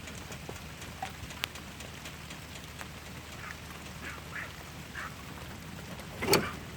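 Steady rain falling, an even hiss with scattered drops ticking on a surface. A few short animal calls sound through it, the loudest and sharpest about six seconds in.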